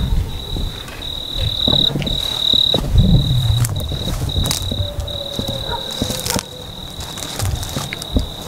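A cricket trilling in one steady high note that breaks off briefly a few times, over footsteps and low thumps.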